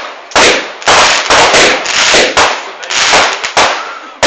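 Fireworks finale: a rapid succession of loud bangs, about two a second, each with a crackling tail that dies away. The bangs are loud enough to overload the phone's microphone.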